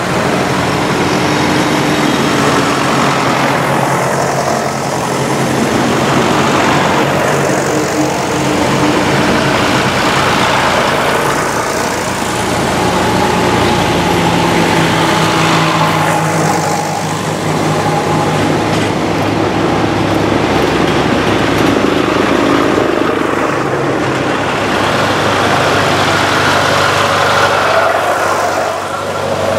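Vintage tractor engines running steadily as several tractors drive past one after another, each growing louder as it approaches and passes close by.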